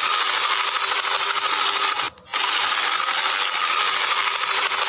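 Helicopter sound effect: a steady, loud rattling rotor-and-engine noise that breaks off for a moment about two seconds in and starts again, as a loop repeating.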